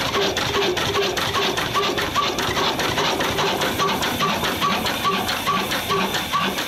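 Old Ruston & Hornsby stationary diesel engine running steadily with a fast, even beat.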